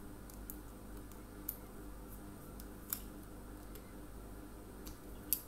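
Small screwdriver working the screws of a plastic screw-terminal connector block: a few scattered light clicks, the sharpest near the end, over a steady low hum.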